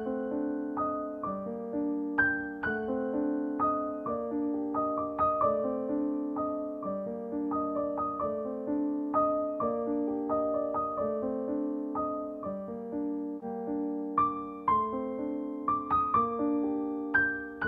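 Background piano music: a slow, gentle melody of struck notes and chords, each fading after it is played.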